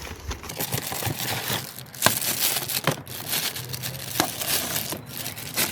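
Crinkling and crumpling as the new engine air filter is handled, with a few sharp clicks along the way.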